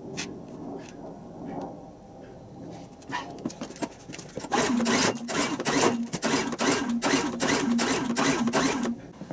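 Champion Digital Hybrid portable generator's engine cranking without catching, which the owner puts down to a gummed-up carburetor. It runs as a steady hum with rapid even chuffs from about four and a half seconds in, then stops suddenly near the end. A few faint clicks come before it.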